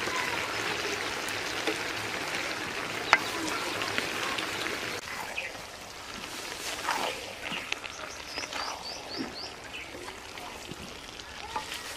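Vegetable curry sizzling in a large metal karahi as it is stirred with a wooden spatula. There is a sharp knock about three seconds in, and the sizzle drops away about halfway through. Near the end a bird chirps a quick run of short notes.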